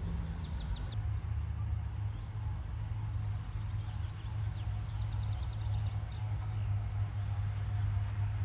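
Steady low drone of a John Deere 8400i self-propelled forage harvester chopping grass, with small birds chirping in quick runs of high notes over it.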